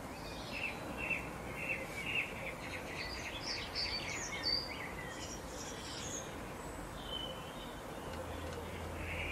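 Small songbirds singing outdoors: runs of short, quick chirping notes, several a second, over a steady background hiss.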